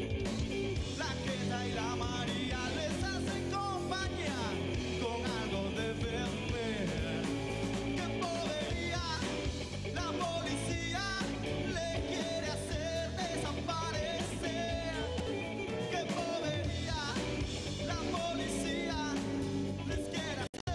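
Live rock-style band music with electric bass and acoustic guitar, playing continuously; the sound drops out for an instant just before the end.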